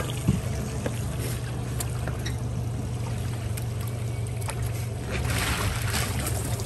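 Honda 90 four-stroke outboard idling with a steady low hum, with a few light knocks as a wire-mesh crawfish trap is hauled up. Water streams off the lifted trap near the end.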